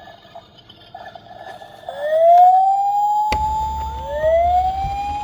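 Toy police car's electronic siren sounding: a wail that rises in pitch and then holds, starting about two seconds in, with a second rising wail overlapping it. A sharp click partway through is followed by a steady low rumble.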